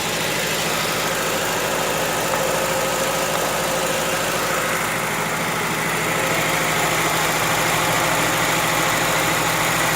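1981 Datsun pickup truck's engine idling steadily, a little louder from about six seconds in.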